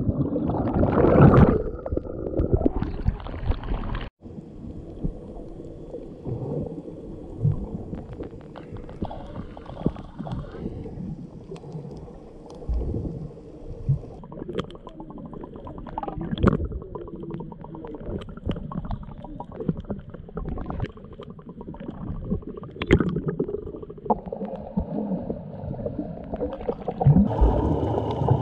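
Underwater sound picked up by a camera below the surface: bubbling, churning water for the first few seconds, then after an abrupt break a muffled low wash with scattered sharp clicks and taps.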